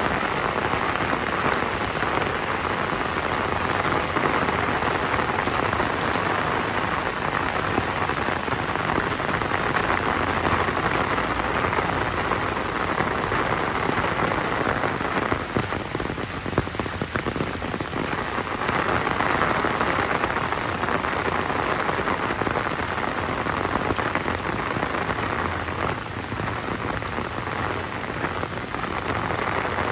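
Steady rain falling and pattering on surfaces, an even hiss that softens a little just past the halfway point.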